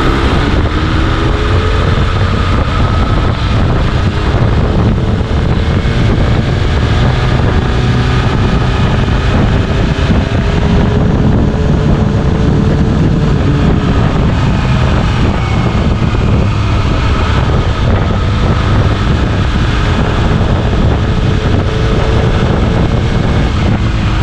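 BMW S1000RR's inline-four engine pulling up through the revs for the first couple of seconds, then running at a fairly steady cruise with slow gentle rises and falls in pitch, under heavy wind rush on the microphone.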